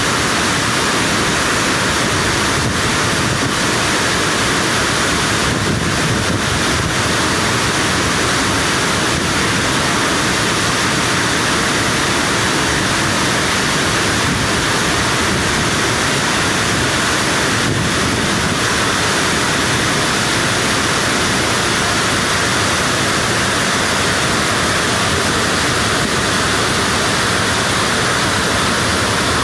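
A waterfall's falling water running loud and steady, a constant rushing noise with no let-up.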